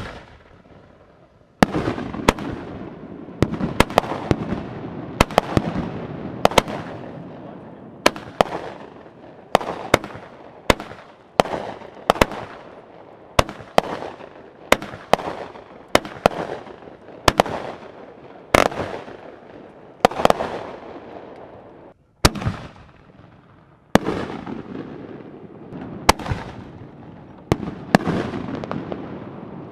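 Aerial fireworks bursting overhead one after another, a sharp bang about every second, each with a fading rumble trailing after it.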